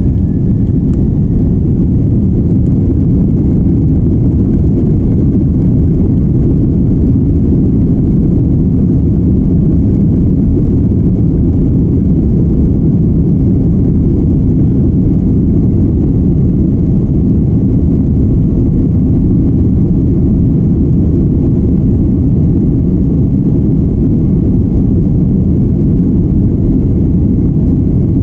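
Steady, loud low rumble of an airliner's jet engines and airflow, heard from inside the passenger cabin.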